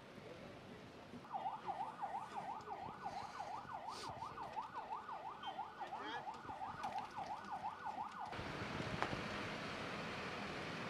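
A siren in fast yelp mode, wailing rapidly up and down about three times a second. About eight seconds in, it cuts abruptly to a steady, broad rushing noise.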